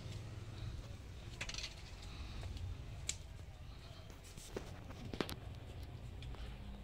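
A low steady rumble of phone handling noise with a few scattered light taps and clicks.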